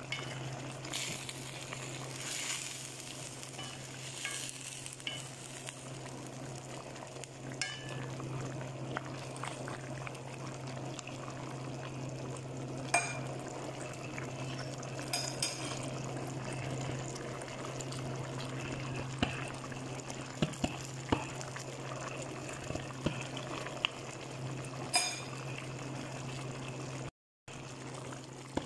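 Chicken stew in tomato sauce simmering in a pan, bubbling with sharp pops and clicks here and there over a steady low hum. The sound cuts out briefly near the end.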